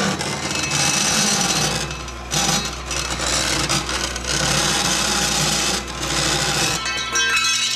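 Vertical bandsaw cutting through aluminum sheet: a steady rasp of the blade teeth on the metal, easing briefly a few times as the feed pressure changes.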